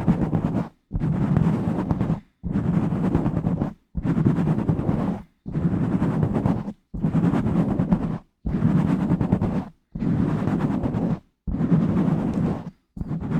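Fingers rubbing and scratching directly on a bare microphone with no cover, giving a rough, low-pitched scraping noise. It comes in an even rhythm of about ten strokes, each a second or so long, with short silent breaks between them.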